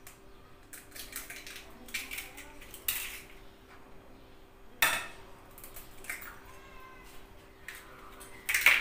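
Eggs tapped and cracked against the rim of a glass bowl, with clinks of glass and shell: a few light taps, a sharp crack about halfway through and a louder clatter near the end, over a faint steady hum.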